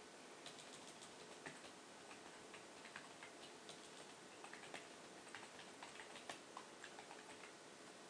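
Faint typing on a computer keyboard: a quick, irregular run of key clicks over a low steady hiss.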